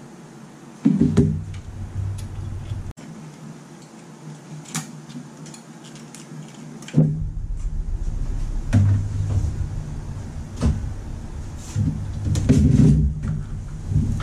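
A PC case being handled and tilted on a workbench: dull thumps and knocks from the case and its panels, with a few light clicks. The strongest knocks come about a second in, about seven seconds in, and in a cluster near the end.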